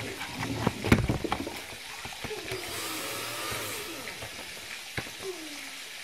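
Handling noise from a plastic modem housing: clicks and knocks as small metal connector parts are fitted by hand. There is a quick cluster of knocks about a second in, then a few single clicks over a steady low hiss.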